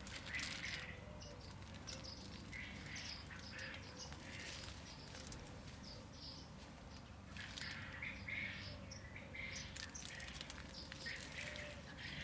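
Small birds chirping over and over in the background, the calls busier in the second half, with a few faint clicks mixed in.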